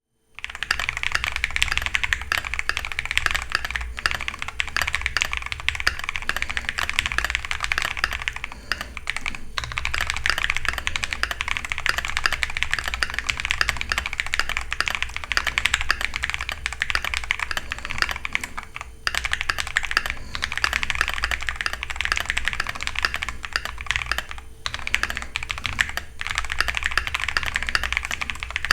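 Continuous fast typing on a Keychron Q2 custom mechanical keyboard with lubed Jelly Strawberry v4 switches. The board has a steel plate, plate foam, tape mod, sound mat and O-rings under the keycaps. The keystrokes run in a dense, even stream with a few short breaks.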